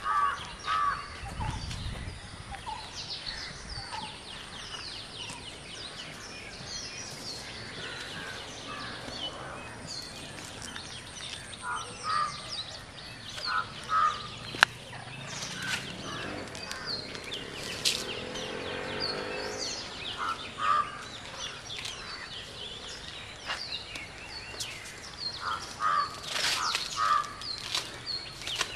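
Outdoor birdsong: many small birds chirping and calling, with crows cawing in short runs now and then. A single sharp click about halfway through is the loudest sound.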